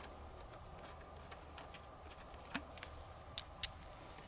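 A few short, sharp metallic clicks and ticks as a wrench and spark plug leads are handled on an outboard motor's powerhead, the loudest two near the end, over a faint low background rumble.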